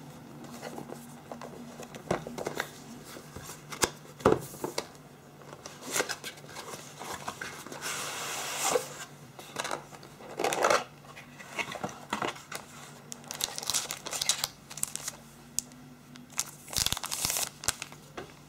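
A cardboard smartphone retail box being handled and opened. The outer sleeve slides off and the inner box flaps open, with irregular scraping and rustling of card and a few sharp knocks and clicks, the loudest about four seconds in and near the end.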